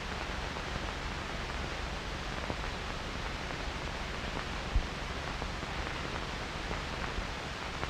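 Steady, even hiss of an old film soundtrack with no distinct sound on it, broken once by a brief low thump about five seconds in.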